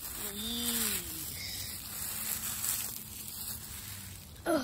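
Rustling of dead leaves and brush as someone moves over the ground gathering leaves. A short wordless voice sound, rising then falling, comes just after the start, and a brief falling vocal sound comes at the end.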